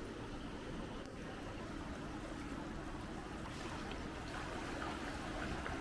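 Water splashing from a swimmer's strokes, starting about three and a half seconds in, over the steady hum of an indoor pool hall.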